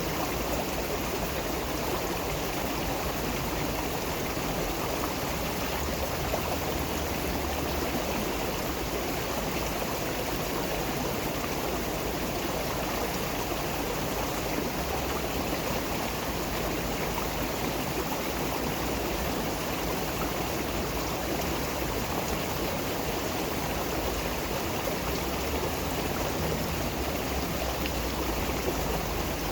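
Running water flowing steadily, an even rushing sound with no break or change.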